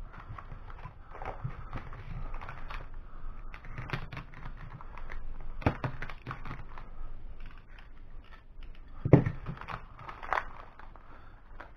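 Scattered small clicks, taps and scrapes of hand tools and small parts being handled while an RC truck's steering is taken apart, with a sharper knock about nine seconds in.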